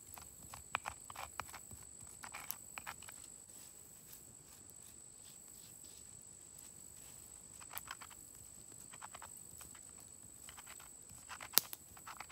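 Whole wheat grains being crushed and ground with a hand stone on a granite grinding slab: irregular clusters of gritty clicks and scrapes, stone on stone and grain. A quieter stretch comes in the middle, and one sharp click near the end.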